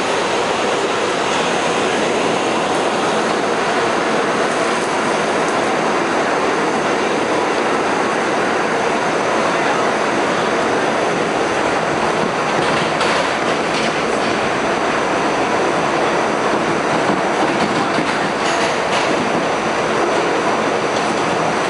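R68 subway car at speed, heard from inside the car: a steady, loud rush of wheel and track noise. A few sharp clicks come through about halfway and again near the end.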